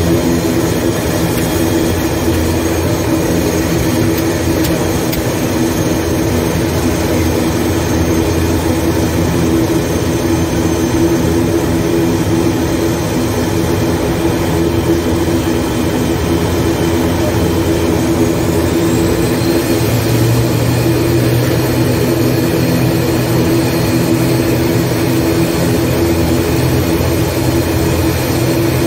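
ATR 72-600's Pratt & Whitney PW127M turboprop engines running while the aircraft taxis, heard from inside the cockpit as a loud steady drone with a mid-pitched hum. A deeper hum grows stronger about twenty seconds in.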